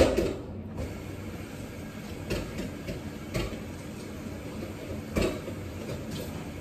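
Utensils knocking against plates and bowls during a meal: one sharp knock at the start, then a few softer clinks about two, three and a half and five seconds in, over a steady low hum.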